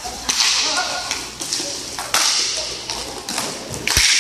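Hockey sticks clacking against the puck and the plastic sport-court floor in a roller hockey game, sharp knocks every half second or so over a steady hiss of skates and the hall, with a heavier thump near the end. Players' shouts are mixed in.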